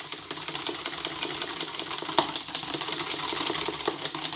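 Wire whisk beating egg yolks and milk in a bowl: a fast, steady rattle of the wires against the bowl, with one sharper clack about two seconds in.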